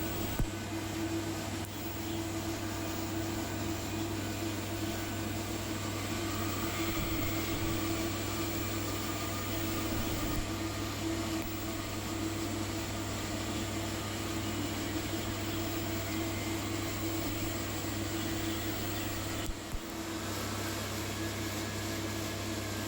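Tube-to-tubesheet welding equipment running on stainless tube: a steady electrical hum with hiss, broken briefly about twenty seconds in.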